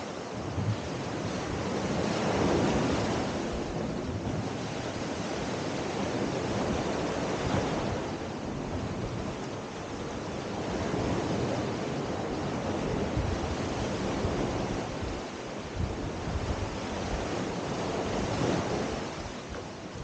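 Small Adriatic Sea waves washing up a sandy beach and drawing back: a continuous rushing surf that swells and eases every few seconds, loudest a couple of seconds in.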